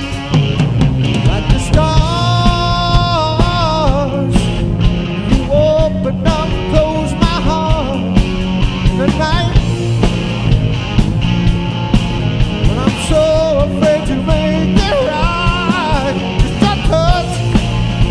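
Rock song with sung vocals over a driving drum beat and instruments.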